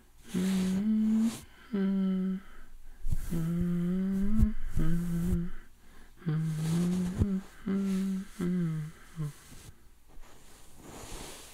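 A man humming a slow, gentle tune close to the microphone in short phrases of held notes, stopping about nine seconds in.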